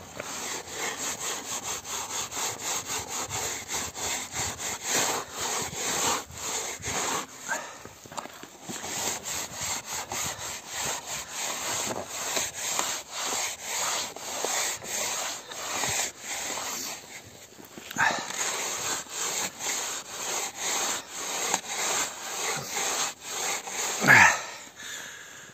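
Cloth rubbing and scraping rime frost off a truck trailer's rear panel, number plate and plastic tail lights in quick, rhythmic strokes, pausing briefly twice. Near the end there is one louder, short sound that falls in pitch.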